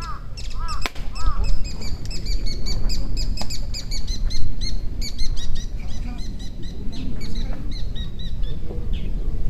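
Small birds chirping rapidly and continuously in quick, high, arching notes, thinning out in the second half, over a constant low rumble. A sharp click sounds just under a second in.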